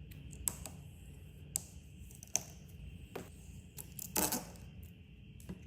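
Small handling sounds from a carbon fiber door handle cover: a few light, sharp clicks and taps, and a brief rustle about four seconds in as its adhesive backing is peeled off.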